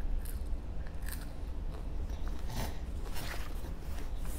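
A child chewing and biting into curly fries, with a few short, soft crunches spread through the chewing.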